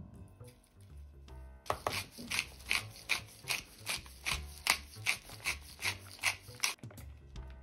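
Wooden pepper mill grinding black pepper: a run of rhythmic rasping strokes, about two to three a second, starting nearly two seconds in and stopping about a second before the end. Soft background music plays underneath.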